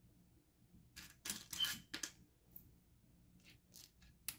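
Small plastic building-block bricks clicking and clattering as a hand rummages through a loose pile of pieces, in a few short bursts of clicks with gaps between.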